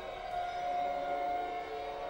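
Violin holding one long, sustained note that swells slightly and then thins out near the end, over the fading reverberation of a fuller chord.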